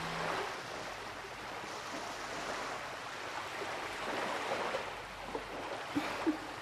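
Steady rushing ambient noise, with a few faint short sounds near the end.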